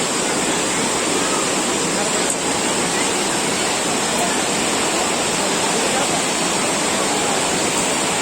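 Steady rush of falling water from a waterfall, even and unbroken.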